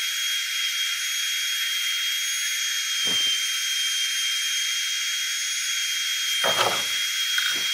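Steady hiss with a thin, high-pitched whine over it and no low end, starting and stopping abruptly; faint knocks come through about three seconds in and again near the end.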